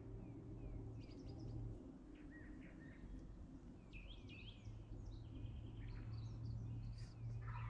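Faint dawn chorus of small songbirds: scattered short chirps and trills over a steady low hum, with a slightly louder call near the end.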